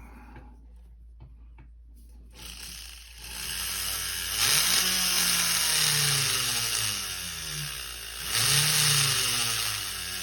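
Jeweller's rotary tool starting a little over two seconds in and running with its speed rising and falling, as a bur cuts a seat for an earring post.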